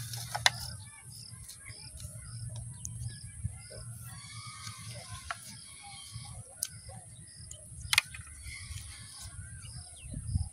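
A few sharp knocks of bamboo poles being handled and set in place, over a bird repeating a short high note about twice a second and a steady high hiss.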